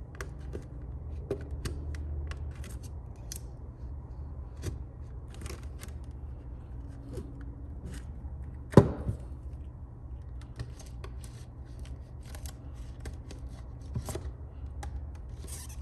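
Light clicks and scrapes of thin plastic prying tools working under the glued back glass of a phone to lift it off. One sharper click comes about nine seconds in, over a steady low hum.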